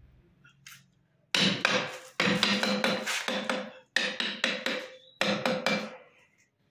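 Hammer tapping repeatedly on a metal part of a railway point machine's friction clutch to drive it home and seat it. There are four bursts of quick strikes, each set carrying a short metallic ring.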